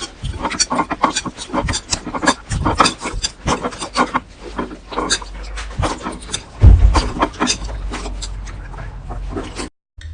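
Slime being squeezed and poked by hand, making quick, irregular wet clicks and pops. The sound cuts off abruptly shortly before the end.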